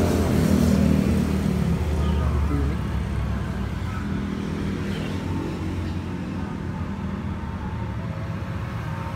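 Isuzu Panther diesel engine idling steadily, louder for the first two to three seconds and then quieter.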